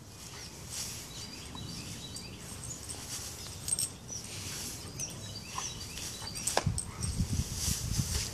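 Bernese mountain dog rooting in a bale of pine straw, sniffing and rustling it. About six and a half seconds in she tears into the bale, and the straw scuffs and rustles louder and choppier as it is scattered.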